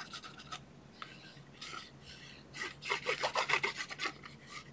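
Cardstock being rubbed and slid by hand on a craft table, light scuffs at first, then a quick run of scraping rub strokes about halfway through.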